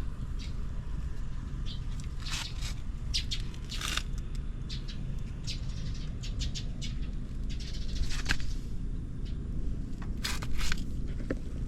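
Buell M2 Cyclone's air-cooled V-twin with Thunderstorm heads idling with a steady low rumble, with short scratchy high-pitched sounds on and off over it.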